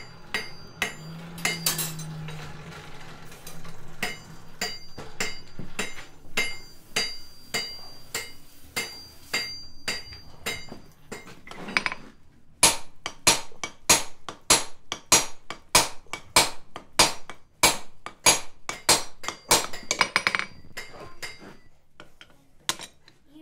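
Hammer blows on steel at an anvil. For the first ten seconds or so, lighter clinking taps ring out. From about twelve seconds in, heavy, even blows land about two to three a second as the smith upsets the hot end of a steel bar, driving it into itself to thicken it.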